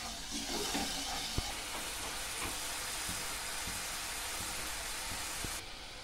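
Spiced chicken-stock curry sauce boiling vigorously in a pot, giving a steady bubbling hiss, with a few light knocks of a spatula against the pot. The hiss drops away sharply near the end.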